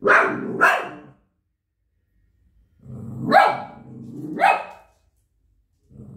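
Shih Tzu barking in short groups: two sharp barks at the start, two more in the middle with a lower rumble beneath them, and another starting near the end.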